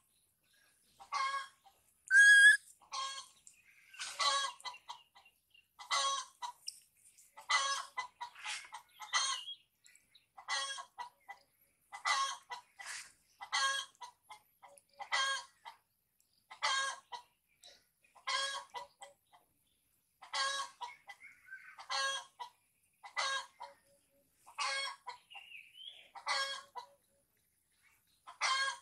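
Short animal calls repeating about every second and a half, each a brief harsh note, with one louder rising call about two seconds in.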